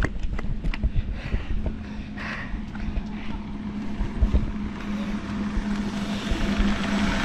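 Electric drive motors of a 36-volt Power Wheels Mustang ride-on running with a steady whine, over rumble and knocks from its rubber tyres rolling across the ground. The sound grows louder toward the end.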